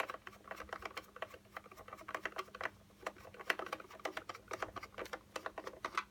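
Screwdriver working the screws on a hoverboard's casing: a fast run of small, irregular clicks and ticks.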